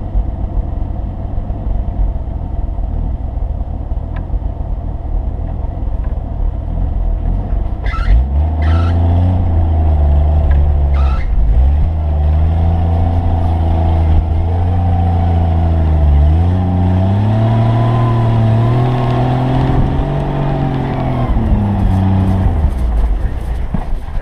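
A 4x4's engine running, then revving up about a third of the way in and held under load as the vehicle pushes through deep snow. The engine note dips and climbs a few times before easing off near the end, with a few sharp clicks around the first rev-up.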